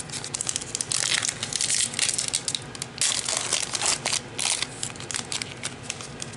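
Foil wrapper of a trading card pack crinkling as it is torn open and handled, a dense irregular crackle.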